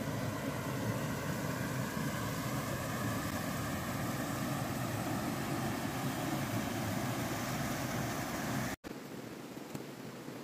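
Steady rush of running creek water over rocks, with a faint steady hum over it. The sound cuts out abruptly about nine seconds in, and quieter running water follows.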